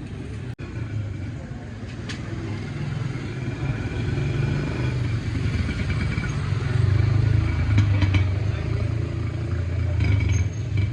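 A motor vehicle's engine running, a steady low rumble that grows louder toward the middle.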